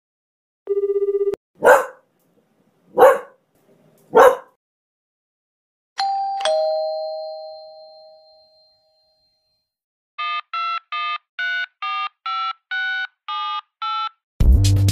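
A string of sound effects. A short steady beep comes first, then three short sharp sounds about a second apart, then a two-note ding-dong doorbell chime falling in pitch and dying away. After that comes touch-tone phone dialing: about eleven quick keypad beeps.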